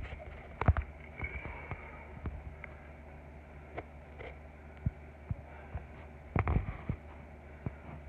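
Handling noise on a phone's microphone: scattered knocks, clicks and rubs as it is moved about, with two clusters of louder knocks, over a steady low hum.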